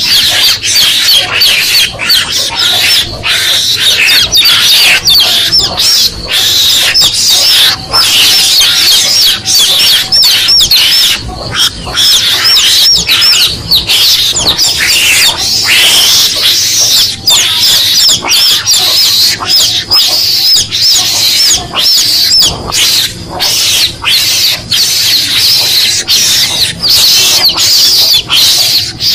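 Mongoose lure call recording: a dense, continuous run of rapid high-pitched chirping and chattering, mongoose calls mixed with chick peeping, broken by frequent brief dropouts.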